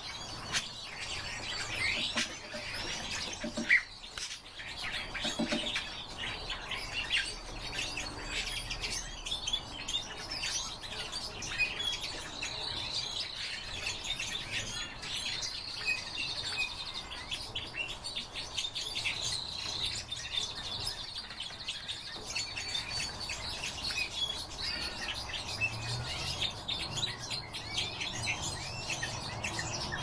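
Caged finches, among them a European goldfinch, singing: a dense, unbroken run of rapid high twittering chirps and trills. One sharp tap stands out about four seconds in.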